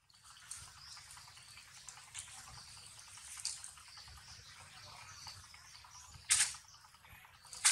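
Macaques handling and chewing green leaves: wet mouthing and small crackling leaf sounds, with a short sharper leaf rustle about six seconds in as the baby pushes into the bunch.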